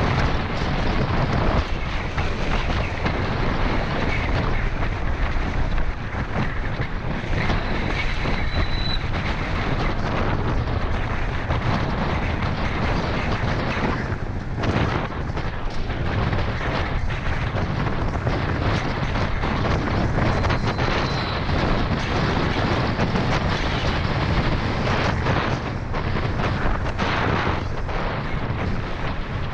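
Wind buffeting a helmet-mounted action camera's microphone at speed on a downhill mountain bike run, with constant rattles and knocks from the tyres and bike on a rough dirt trail.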